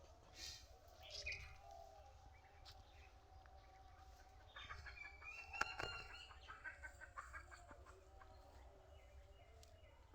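Faint chicken clucking: a run of short calls about halfway through, with two softer ones near the start.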